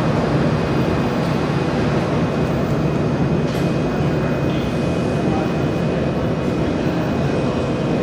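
Jewelry laser welding machine running: a steady rushing hum with a faint high whine held throughout.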